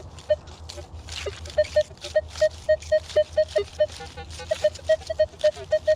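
Metal detector beeping in quick, short, same-pitched tones, about three or four a second from a second and a half in, as it sounds off on a target in the hole, over soft scraping of soil.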